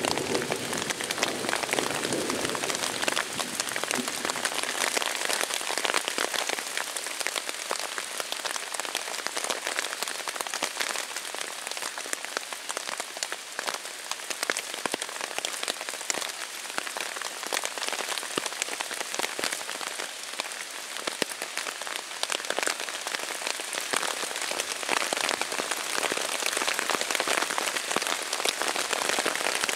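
Heavy rain falling on a tarp overhead, heard from underneath: a steady, dense hiss of drop hits.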